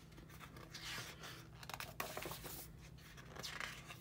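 Pages of a large photobook being turned by hand: several soft paper swishes and rustles, with a light snap of a page about two seconds in.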